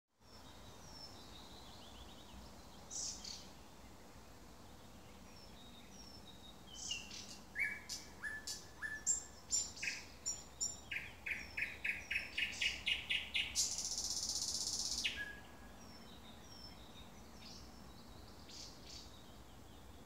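Thrush nightingale singing. A phrase of varied sharp notes and clicks speeds up into a run of loud repeated notes and ends in a dry rattle of about a second and a half. Softer short notes come before and after it, over a steady background hiss.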